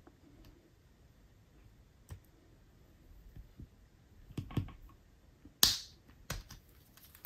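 A few scattered sharp clicks and taps from a screwdriver prying at the plastic tabs of an old Bachmann F7 HO-scale locomotive's gearbox, with the loudest click about three-quarters of the way through.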